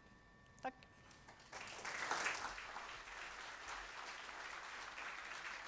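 Audience applauding, the clapping breaking out about a second and a half in and then going on steadily.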